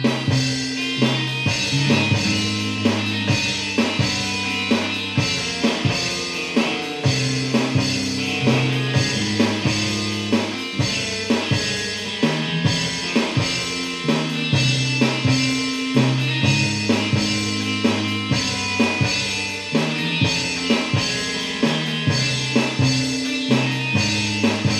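Rock music played on iPhone and iPod instrument apps: an app drum kit keeping a steady beat of kick and snare, with app bass notes stepping underneath and app guitar above.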